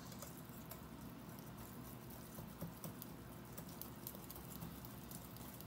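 A utensil clicking against a mixing bowl as runny cake batter is stirred by hand: many quick, irregular light taps over a low hum.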